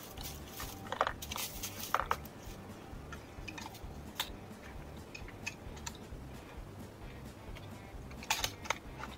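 Scattered sharp metallic clicks and clatter of a rifle being handled and readied for firing on a wooden shooting bench, loudest about a second or two in and again near the end.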